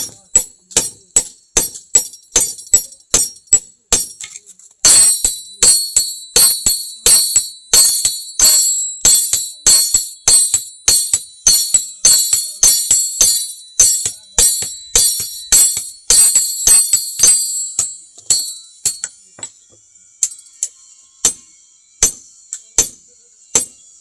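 Hand hammer striking a long parang blade on an anvil in a steady forging rhythm, about two to three blows a second, each with a bright metallic ring. The blows grow louder and ring more from about five seconds in, then become sparser and weaker after about eighteen seconds.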